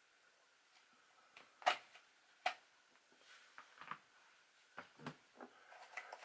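Scattered clicks and knocks of hard plastic and metal parts as an RC truggy chassis is handled, with two sharper knocks about two seconds in and lighter taps after them.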